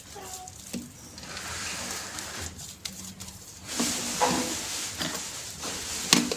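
Homemade glue slime being stirred and kneaded by hand, giving irregular soft squishing and rustling noise that swells for a while in the middle.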